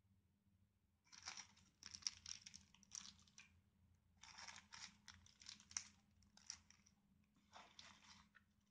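Clear plastic accessory bags crinkling as they are handled and lifted out of a cardboard box, in three bursts of a second or two each, with a few small sharp clicks.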